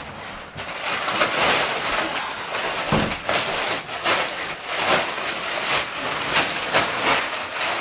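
Clear plastic wrapping crinkling and rustling as it is pulled off an exercise machine's metal frame and padding, with a dull thump about three seconds in.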